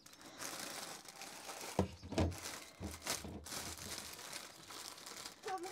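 A clear plastic bag crinkling and rustling as lettuce is handled in it, with a couple of dull knocks about two seconds in.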